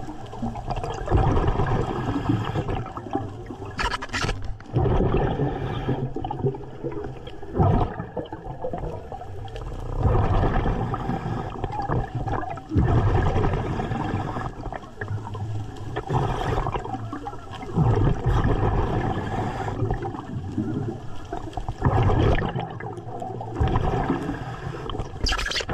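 A diver breathing underwater: exhaled air bubbling and gurgling in repeated surges every few seconds.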